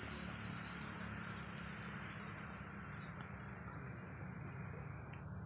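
Steady outdoor background: a low rumble and a hiss that fades about five seconds in, over a thin, steady high whine, with a faint click about three seconds in and another near the end.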